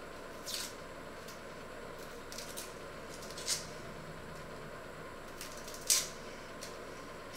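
Boiled eggs being cracked and peeled by hand with a knife over an enamel bowl: a handful of short, sharp shell crackles and taps, the loudest about three and a half and six seconds in, over a steady background hiss.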